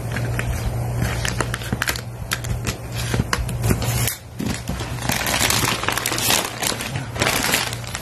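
Clear plastic wrap on a cardboard box being cut with scissors and torn off by hand: irregular crinkling and crackling with sharp snips, heaviest in the second half. A steady low hum runs underneath.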